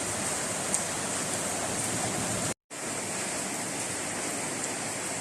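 Heavy rain pouring down in a steady hiss, cutting out for a moment about two and a half seconds in.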